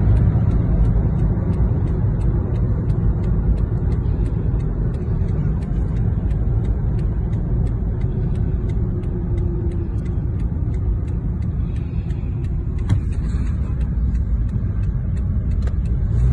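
Steady low road rumble inside a moving car's cabin, with faint quick ticks at an even pace over it.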